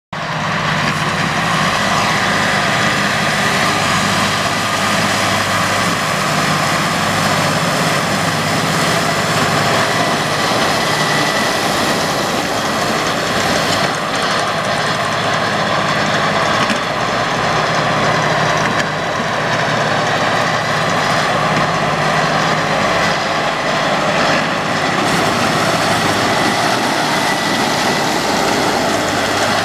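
Tractor engine working under load while driving a Kverneland Taarup 4232 trailed disc mower cutting standing grass, a steady drone with the whir of the spinning cutter bar. The sound holds even throughout, with only slight dips in level.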